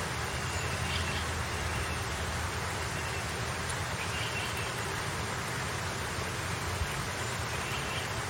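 Steady outdoor background noise with three faint, short high chirps spread through it.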